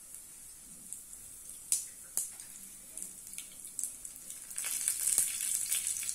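Dried red chillies and dal sizzling in hot oil in a frying pan, a steady hiss with scattered crackling pops, as a tempering is fried. The sizzle grows louder about four and a half seconds in.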